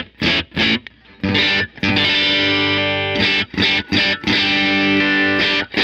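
Electric guitar played through a distorted amp tone: a few short, choppy chord stabs, then chords strummed and left to ring with brief breaks between them.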